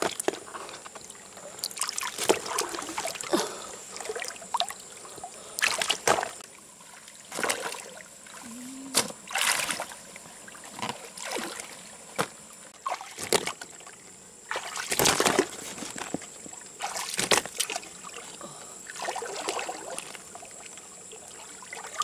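Shallow lake water splashing, sloshing and trickling in irregular bursts every second or two as someone wades and reaches into the water for mussels. Water drips from the hands onto the palm leaves holding the catch.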